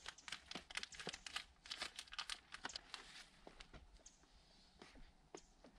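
Faint crinkling and crackling of Blueskin VP100 peel-and-stick membrane and its plastic release film as the roll is unrolled and handled. The crackle is dense for about three seconds, then thins to scattered clicks.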